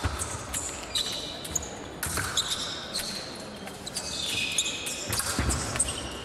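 Women's épée bout: steel épée blades clicking and scraping with short high metallic rings, among the thumps of the fencers' feet stamping and lunging on the piste.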